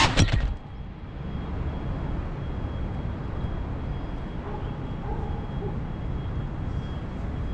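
FPV drone's motor whine cuts off as it comes down, with a brief clatter at the start. Then a steady low rumble of city traffic follows.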